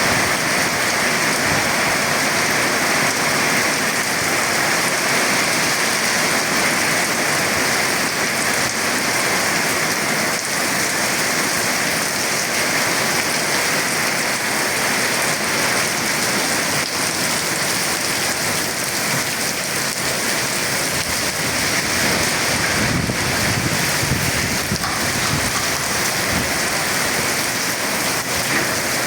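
Heavy rain falling steadily, with a low rumble of thunder about three-quarters of the way through.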